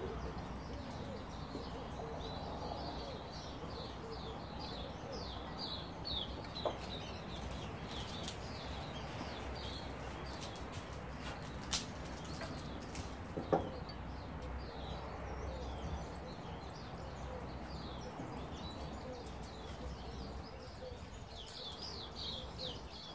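Birds chirping in quick repeated high notes, with a few sharp clicks scattered through.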